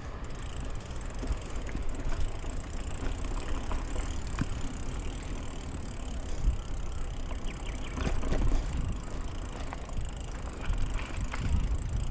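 Mountain bike rolling over a narrow dirt singletrack: tyre noise with scattered clicks and rattles from the bike, over a low wind rumble on the microphone.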